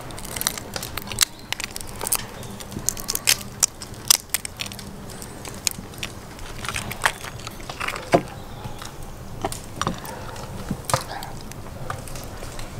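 Boiled crayfish shells being cracked and peeled by hand, a quick irregular series of crunching snaps and cracks.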